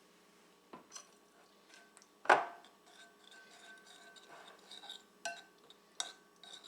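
Kitchen utensils and dishes clinking while sauce ingredients are added and mixed: a few sharp clinks, the loudest about two seconds in, with light tinkling between.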